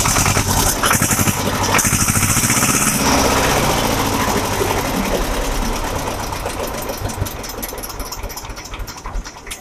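Escort 335 tractor's two-cylinder diesel engine running with a rapid, knocking beat, loudest for the first three seconds, then settling and growing gradually quieter toward the end.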